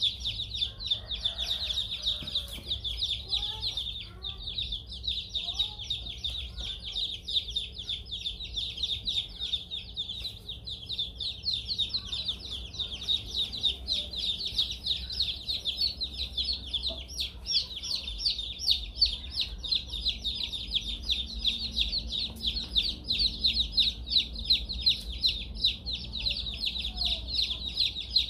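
A brood of newly hatched chicks peeping nonstop, many high, short, downward-sliding peeps overlapping into a dense chorus, over a steady low hum.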